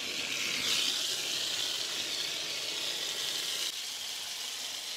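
Garden hose spray nozzle hissing steadily as the water sprays onto dry grain feed in a plastic stock tank, soaking the feed for fermenting. The spray gets a little softer about three-quarters of the way through.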